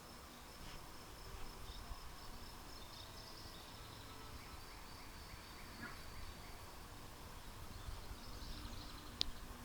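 Faint, high insect trilling that wavers on and off, over a low rumble, with one sharp click near the end.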